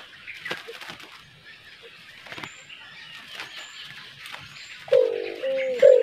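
A few sharp knocks and faint high bird chirps, then about five seconds in a white-eared brown dove starts cooing, a low hooting note repeated in a quick series.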